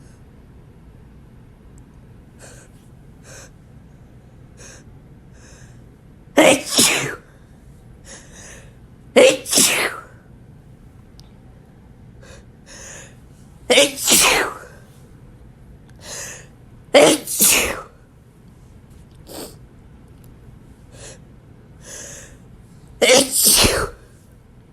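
A man sneezing wetly five times, a few seconds apart. Each sneeze is led up to by short, catching breaths that hitch before it comes.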